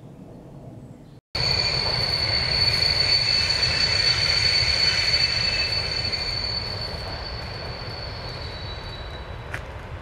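Electric commuter train running past: a steady rumble with a high steady whine above it, starting suddenly about a second in and slowly fading toward the end.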